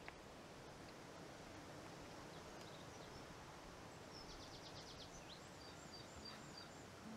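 Faint outdoor background hiss. A distant small bird sings a quick run of high notes about four seconds in, followed by a few thin repeated notes.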